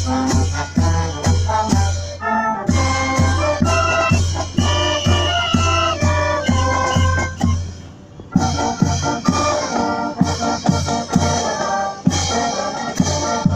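Military marching band playing a march on saxophones, brass and drums over a steady beat of about two drum strokes a second. The music drops away briefly about eight seconds in, then comes back in full.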